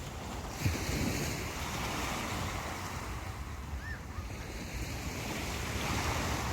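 Sea waves breaking and washing onto a beach, with one surge about half a second in and another swelling near the end. Wind rumbles on the microphone throughout.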